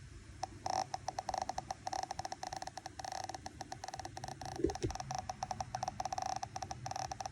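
Mini Pulse Plus Rev D's audio output giving a rapid, uneven stream of clicks with a mid-pitched buzzing tone, starting about half a second in and changing in rate as it goes. A brief low thump comes about two-thirds of the way through.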